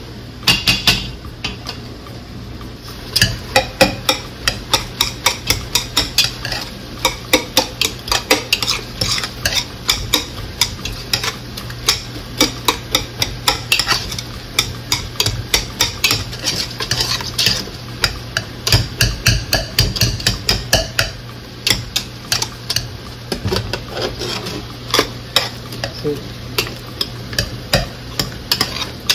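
Boiled potatoes being mashed in a metal stockpot: the masher knocks against the pot in a quick, uneven rhythm of about two to three strokes a second. The strokes start about three seconds in.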